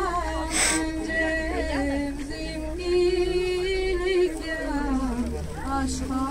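A girl singing solo into a microphone: a slow melody of long held notes that slide from one pitch to the next.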